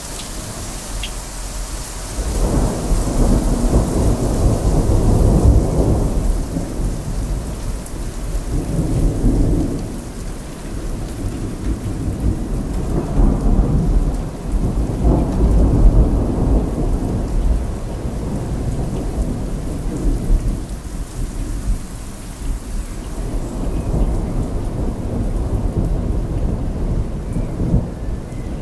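Heavy rain falling steadily through a thunderstorm, with thunder rumbling in several long, low rolls that swell and fade one after another.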